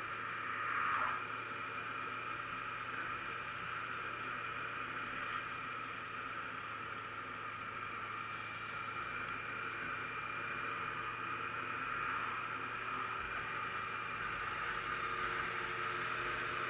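Steady wind and road noise on a camera riding on a moving motorcycle: a constant hiss with a low hum under it and a brief louder swell about a second in.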